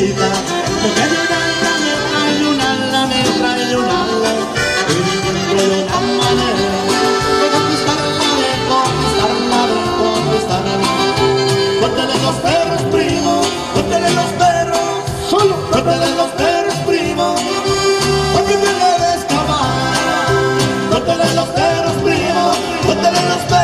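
Norteño band playing a cumbia live: accordion lead over twelve-string guitar, bass and drums, with a steady beat.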